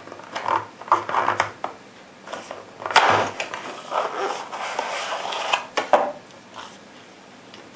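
Paperboard cartridge box being opened by hand and a plastic tray of cartridges slid out of it: rustling and scraping of cardboard with several short sharp clicks and scuffs, the loudest about three seconds in.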